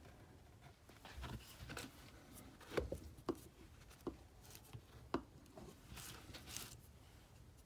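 A handful of short knocks of a mallet driving a leather punch through the leather onto a plastic cutting board, the loudest about three seconds in, with light rustling and scraping as the leather and tools are handled.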